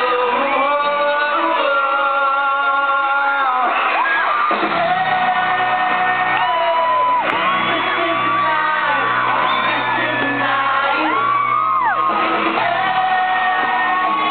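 Live pop concert music with a lead singer's sustained, gliding notes over the band, and crowd shouts and whoops, echoing in a large hall.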